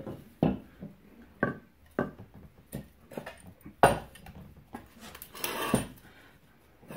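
Knocks and clunks from handling a new suspension strut and its parts by hand: a sharp hit every second or so, the loudest just before the middle, with a longer scraping rustle about five seconds in.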